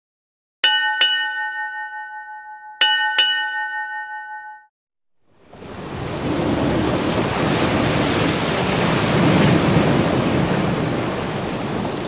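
A ship's bell struck in two pairs, ding-ding, ding-ding, each stroke ringing on and fading. Then a steady wash of surf and harbour water.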